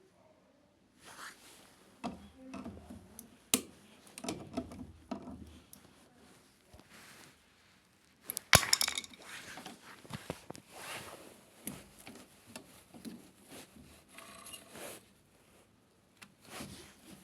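Hands working with tools and parts: irregular knocks, clicks and scraping, with a sharp knock about three and a half seconds in and the loudest clatter about eight and a half seconds in.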